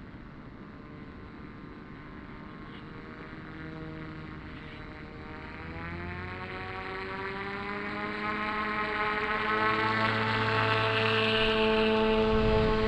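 Small brushless motor and pusher propeller of an Eachine F-22 Raptor RC foam jet in flight, a steady whine that grows louder and rises in pitch about halfway through before holding steady.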